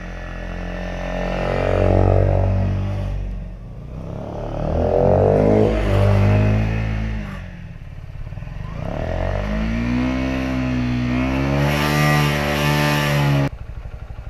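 Honda CBR125's single-cylinder four-stroke engine running with the throttle blipped, revving up and falling back about three times. Near the end the revs drop suddenly to a steady, lower idle.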